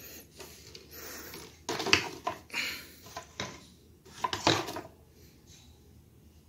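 Handling noise: a few light knocks and rustles, with the sharpest knocks about two seconds in and again about four and a half seconds in, then quieter.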